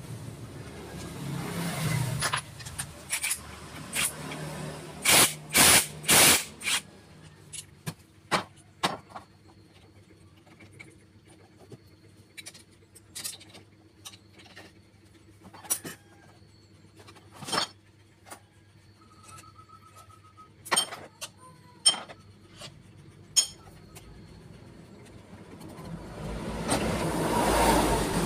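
Metal clinks and knocks of motorcycle wet-clutch parts (clutch plates, clutch basket and housing) being handled and pulled off the shaft by hand as the clutch is taken apart. The clicks are scattered, with a few loud knocks about five to six seconds in, and a rush of noise swells near the end.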